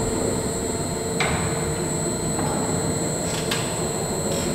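1801 Boulton and Watt beam engine running, a steady mechanical rumble and hum with a few sharp clicks from the motion work, about a second in and again past three seconds.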